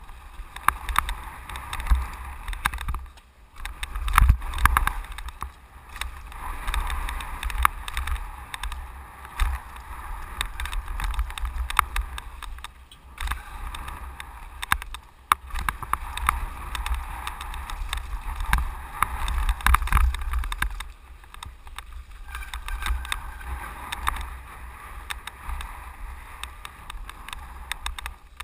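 Mountain bike running fast down a loose gravel trail: wind buffeting the microphone in a steady low rumble, tyres hissing over gravel, and the bike and camera rattling and clattering over bumps, with the hardest jolts about four seconds in and again near twenty seconds.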